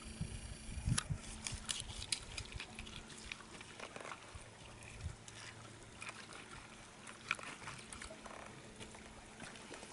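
A knife cutting open a freshly caught fish in shallow seawater, with small splashes, trickles and irregular wet clicks as the fish is handled. The clicks are thickest from about one to two and a half seconds in, with a few more scattered later.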